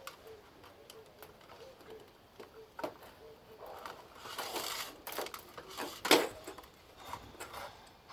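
Hands working the plastic parts of a dismantled hair dryer to free its electric motor: scattered clicks and rustling, a longer rustle about four seconds in and a sharp click about six seconds in.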